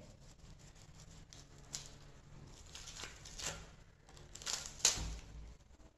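Adhesive tape rubbed down onto a CD and then peeled off, pulling the disc's printed label layer away with it. A few faint rustles, then a louder ripping peel about four to five seconds in.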